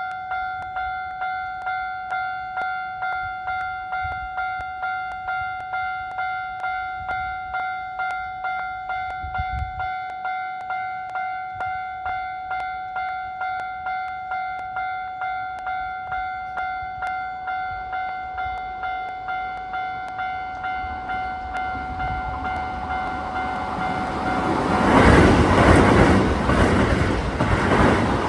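Japanese level-crossing warning bell ringing steadily, a little under two strokes a second. From about 22 seconds a Keisei 3800-series train approaches and passes through the crossing, its rumble and wheel clatter growing loud and drowning out the bell.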